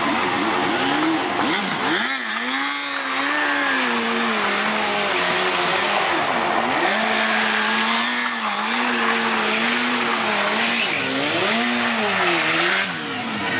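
Motorcycle engine revved hard and held at high revs, its pitch dipping and climbing back several times with the throttle, over a steady loud rushing hiss.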